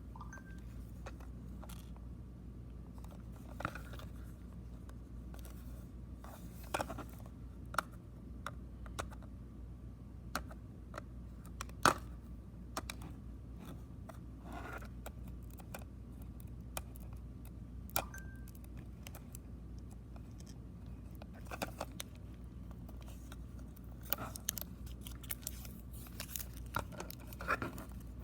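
Cassette packaging being handled and unwrapped: scattered light clicks, scratches and crinkles of plastic, with one sharp click about twelve seconds in.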